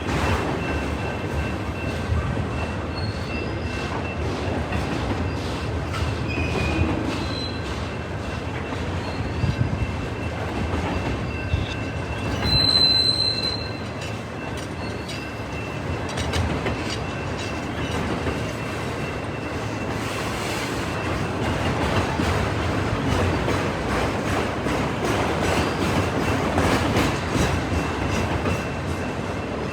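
CN freight train rolling past, wheels clicking steadily over the rail joints, with faint steady wheel squeal and a brief sharper squeal a little before halfway.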